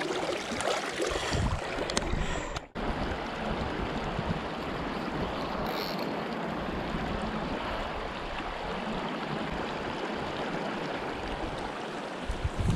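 Shallow, rocky river riffle: a steady rush of water flowing over stones. In the first couple of seconds there is some splashing from hands in the current as a trout is held in the water, and a brief dropout in the sound about three seconds in.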